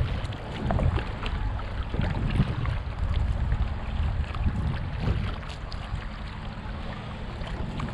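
Water splashing and lapping around a kayak, with many small scattered splashes, over a steady low rumble of wind on the microphone.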